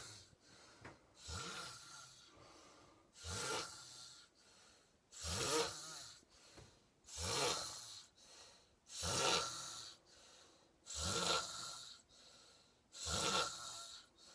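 A woman snoring in her sleep: a regular run of seven snores, each about a second long, about two seconds apart.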